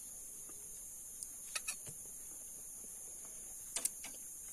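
A steady, faint high-pitched insect hiss, with a few sharp clicks or taps: a pair about a second and a half in and a quick cluster of three about four seconds in.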